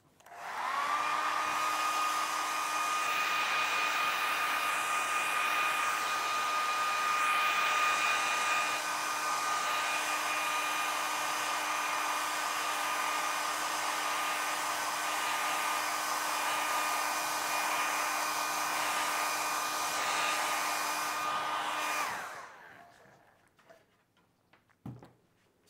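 Hand-held hair dryer blowing on freshly applied leather paint to dry it: a steady rush of air with a motor whine. It switches on about half a second in, the whine rising as it spins up, runs steadily, and cuts off about 22 seconds in.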